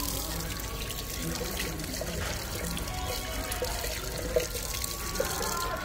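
Background music over a steady rushing hiss, with one short knock about four seconds in.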